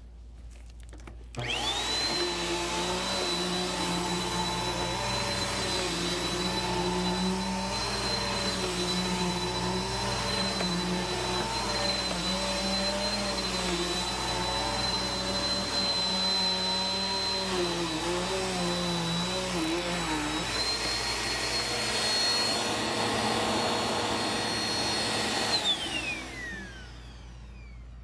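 Upright vacuum cleaner switched on about a second in: its motor spins up to a steady high whine while it is pushed over carpet. Near the end it is switched off and the whine slides down as the motor winds down.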